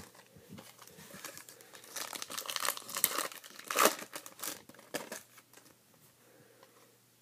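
Foil trading-card pack crinkling and tearing as it is ripped open by hand, in a run of crackles from about two to five seconds in, loudest near four seconds.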